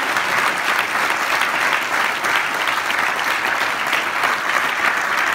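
Theatre audience applauding steadily: a dense, sustained clapping from many hands that keeps going without letting up.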